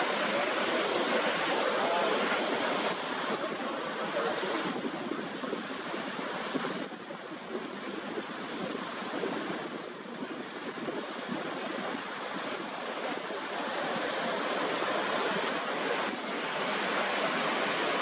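Niagara Falls: the Niagara River's rapids rushing over the crest of the falls, a steady, dense rush of water that dips slightly in level a few times.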